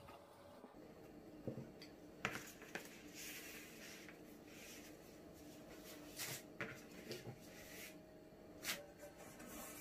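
Quiet rustling and crinkling of stacked phyllo (yufka) sheets as a pizza-cutter wheel trims them around a tart pan and the cut-off strips are pulled away, with a handful of short sharp clicks.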